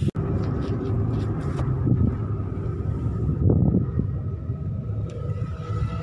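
Low, steady rumble of a car cabin on the move, with a faint thin high tone running through it.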